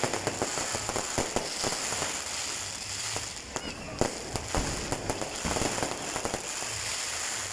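Fireworks going off: a dense run of rapid crackling pops and sharp bangs over a steady hiss.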